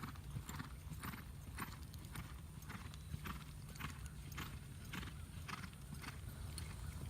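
Horse loping, its hoofbeats in a steady rhythm of about two strides a second.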